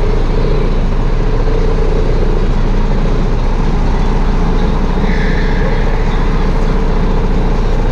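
Sodi RT8 rental go-kart engine idling steadily, picked up close by a camera mounted on the kart itself, with a brief higher tone about five seconds in.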